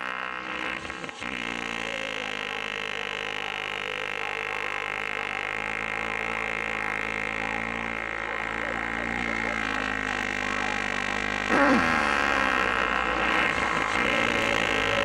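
A long, steady droning buzz rich in overtones, with a brief sliding swell about eleven and a half seconds in.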